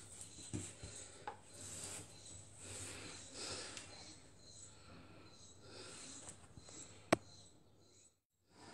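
Hands working soft brioche dough on a floured board: faint rubbing with a few light knocks, and one sharp click about seven seconds in.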